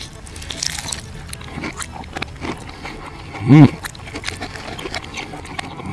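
Close-up chewing of crispy fried chicken played backwards: wet mouth clicks and crunching crackles, with one short hummed "mmm" from the eater, rising then falling in pitch, about three and a half seconds in.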